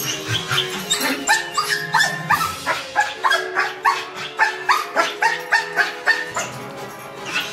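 Young German Shepherd barking and yipping over and over, about two short barks a second, worked up and jumping at her handler. Faint background music runs underneath.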